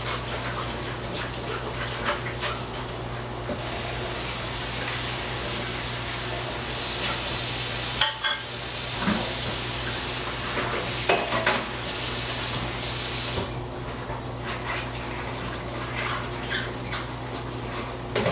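Kitchen work sounds: a utensil clinking and knocking against a pot or pan, with a steady hiss, like frying or running water, through the middle of the stretch that cuts off near the end.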